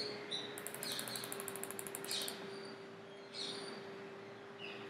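Faint computer mouse clicking, with a quick, even run of ratchet-like ticks about half a second in, over a steady low electrical hum. Short high chirps come now and then in the background.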